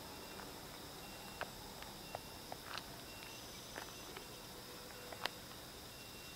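Faint outdoor insect chirping, a steady high buzz with short repeated chirps, broken by scattered small clicks and taps.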